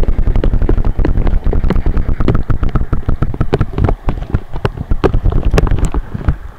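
Camera microphone held underwater in a stream: a loud, muffled rumble of moving water with rapid crackling knocks, easing near the end.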